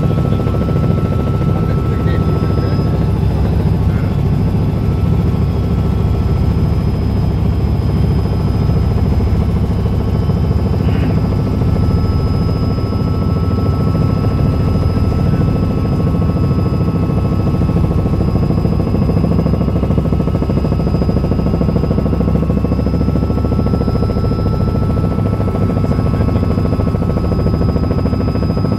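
Robinson R66 turbine helicopter in level flight, heard from inside the cabin: a loud, steady rotor and engine drone with thin, steady high-pitched whines above it.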